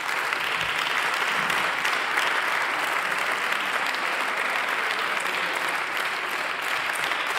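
Steady applause from a chamber full of seated members of parliament clapping their hands.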